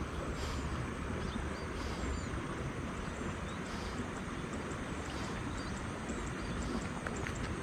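Steady outdoor noise over open rice paddies, with short, faint high bird chirps now and then.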